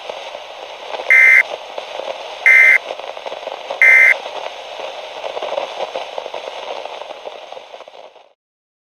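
Emergency Alert System end-of-message signal: three short bursts of SAME digital data tones, about a second and a half apart, over a steady hiss of radio static that cuts off abruptly near the end.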